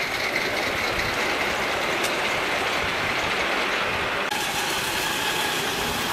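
Ride-on miniature live-steam locomotives running on a small-gauge track: a steady, noisy rush of running gear and steam with no clear beat. About four seconds in the sound changes abruptly to another locomotive.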